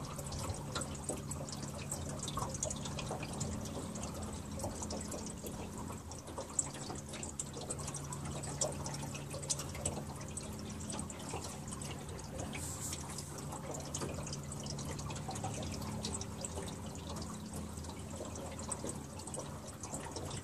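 Water dripping and trickling with many small splashes, over a steady low hum.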